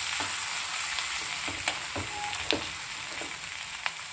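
Ivy gourd (kovakkai) pieces sizzling in oil in a kadai while a steel perforated ladle stirs them, with a few sharp clicks and scrapes of the ladle against the pan.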